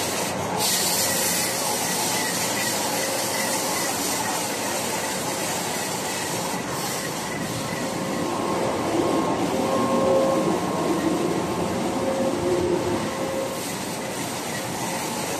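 Flexo printing machine running: a steady mechanical din with faint whining tones over it, swelling a little toward the end.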